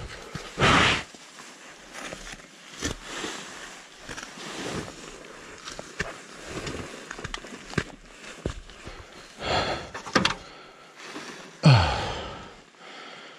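A person breathing hard and sighing after a crash, in uneven gusts, with footsteps on loose gravel. A falling groan comes near the end.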